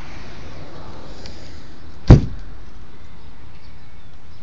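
A hinged, carpeted storage hatch lid in a jon boat's front deck dropping shut: one loud thump about two seconds in.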